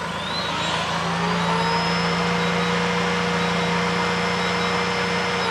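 Vacuum cleaner motor run from a pure-sine inverter: it spins up with a rising whine over about a second and a half, runs steadily, then winds down near the end as the inverter's overload protection trips and cuts the power. A steady low engine hum from the idling vehicle feeding the inverter runs underneath.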